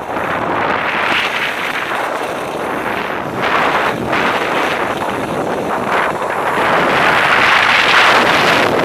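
Rushing wind noise on the microphone of a body-mounted camera while skiing, mixed with the hiss and scrape of skis sliding over snow, swelling and dipping with the turns and loudest near the end.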